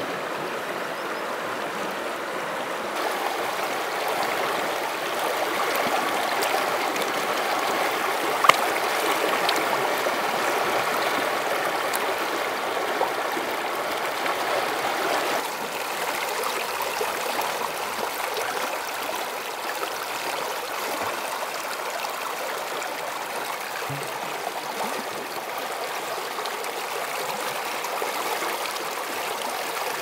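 Steady rush of a fast-flowing mountain stream, with one sharp click about eight seconds in.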